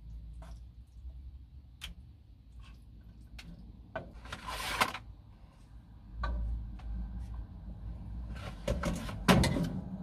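Cooking utensils clicking and scraping against a small metal saucepan as meat sauce is spooned and lifted out with tongs into an oven dish. A short rustle of a packet comes about four seconds in, and a cluster of louder clatters near the end.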